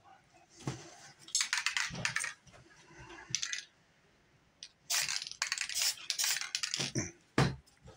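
Aerosol spray paint can hissing in several short bursts as paint is sprayed along the edge of a hand-held paper mask, with paper handling noises and a dull thump near the end.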